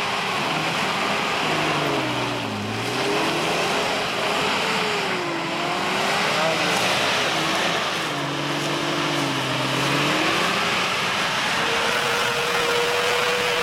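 Mitsubishi Pajero's V6 engine driven off-road under changing throttle, its note falling and rising twice, then holding steady and higher near the end, over a constant rushing noise.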